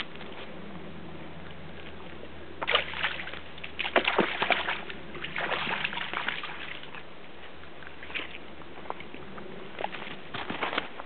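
Dog splashing and sloshing through shallow pond water in uneven bursts. The heaviest splashing comes about three to seven seconds in, with a few smaller splashes near the end.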